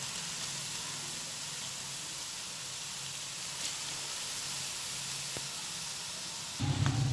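Grated carrots frying in hot desi ghee in a pot, a steady sizzling hiss. A louder low rumble comes in suddenly near the end.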